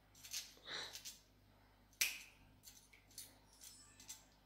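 Light clinks and scrapes of a metal spoon handled against stainless steel bowls, with a sharp click about two seconds in.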